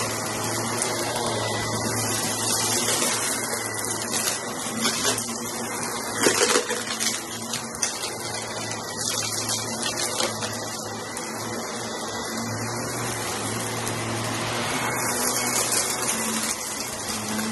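Upright vacuum cleaner running steadily, with a low motor hum under the rushing suction, as its brushroll is pushed back and forth over thick shag rugs: the rug crunch of the pile under the head. There is a brief louder rush about six seconds in.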